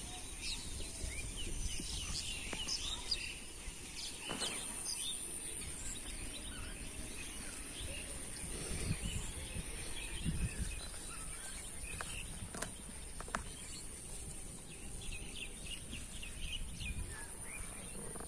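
Outdoor field ambience: small birds chirping on and off, over a steady high-pitched whine and low rumbling noise.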